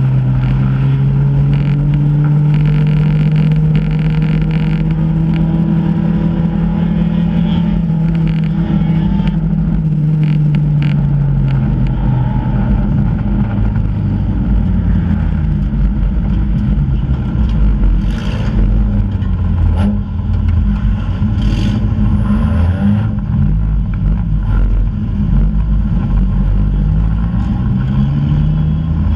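Four-cylinder enduro race car's engine heard from inside its stripped cabin. It runs at a steady pitch at speed, eases off about ten seconds in, then rises and falls as the driver lifts and accelerates. Knocks from the car body and a few brief high squeals come over it.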